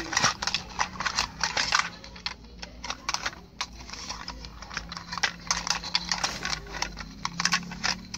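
Small plastic toy vehicles being handled and pushed, giving a dense, irregular run of light plastic clicks and clatters as the toys knock together and their plastic wheels rattle.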